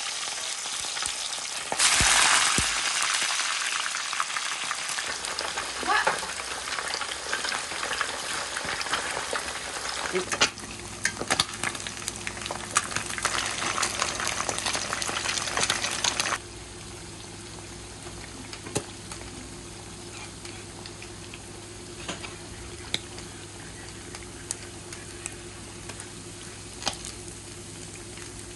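Fish pieces deep-frying in very hot oil in a wok: dense, loud sizzling that flares about two seconds in, with occasional sharp clicks as the pieces are turned with chopsticks. Past the middle the sizzle drops abruptly to a quieter, steady crackle over a low hum.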